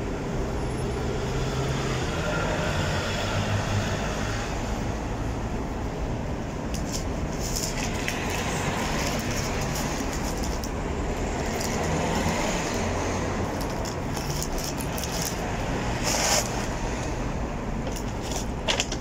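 Steady background road-traffic rumble, with a few brief paper rustles and clicks from eating, the sharpest about sixteen seconds in.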